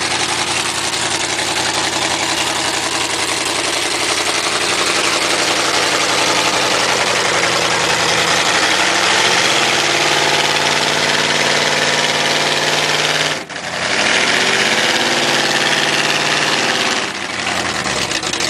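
Pickup truck engine running hard under load as a truck is towed out of deep mud, loud throughout. The revs climb about halfway through, cut off sharply for a moment, climb again, and fall away near the end.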